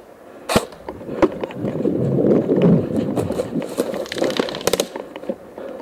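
Footsteps and gear rustling as a player moves quickly over dry pine-needle forest floor, set between a few sharp clicks: single ones about half a second and a second in, and a quick cluster of three or four near the end.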